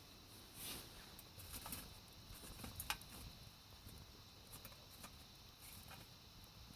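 Wood fire in a small wood-burning camp stove crackling faintly, with scattered sharp pops, the loudest about three seconds in, over a low wind rumble on the microphone.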